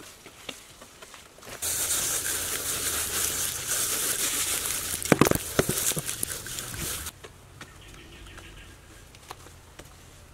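Hands rubbing and smoothing a cement-plastered surface right by the microphone: a loud, scratchy, crackling scrape with a few sharp taps near the middle. It starts and stops abruptly, leaving faint background sound.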